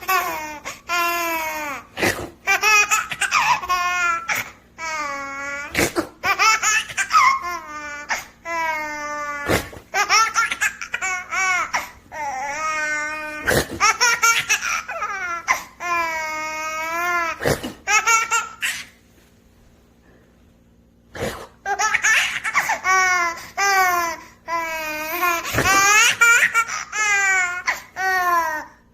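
Baby laughing in repeated bursts of high, pitched laughter, each a second or two long, with short sharp sounds between some of them. There is a pause of about two seconds past the middle.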